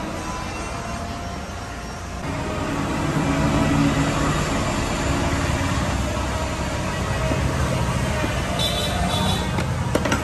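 A motor vehicle's engine running steadily amid traffic noise, growing louder about two seconds in.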